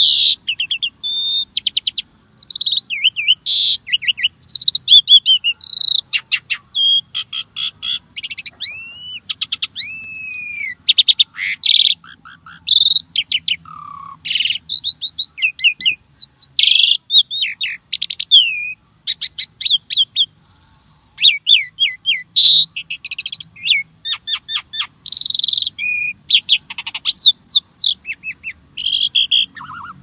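Starling (jalak) singing a long, varied song of rapid chirps, rising and falling whistles and harsh clicking notes, with hardly a pause.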